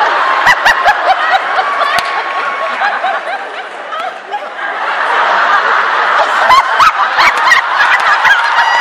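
Large audience laughing, dipping a little then swelling again about halfway through, with scattered claps.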